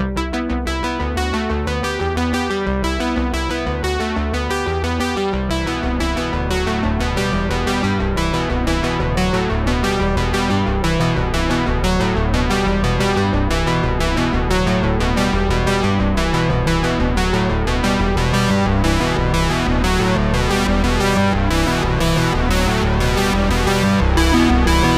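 Background music: an electronic synthesizer and keyboard tune with a steady beat.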